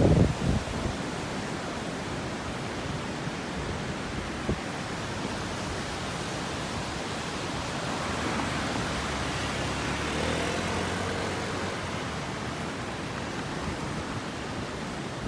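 Steady rushing of the Abukuma River in flood, swollen by a typhoon to its highest level in decades. The rush swells a little about halfway through.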